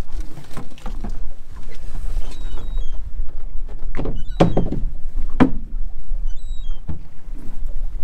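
Rope being hauled in by hand over the side of a small open boat to bring up a pot, with several knocks against the hull, the loudest about four and a half and five and a half seconds in. Under it runs a steady low noise of wind and choppy water.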